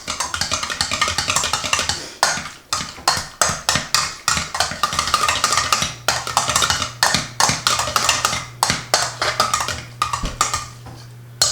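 Old hand potato masher pounding cooked potatoes in a pot: a steady run of knocks, about two to three a second, as it hits the pot bottom.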